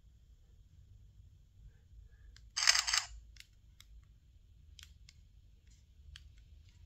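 CS06 body camera playing its shutter sound once, a short sharp burst about two and a half seconds in, with faint clicks of its buttons being pressed.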